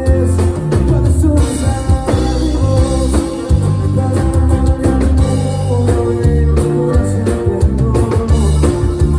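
Live band playing loudly in rehearsal: a heavy bass line, drum kit hits and guitar, with some singing.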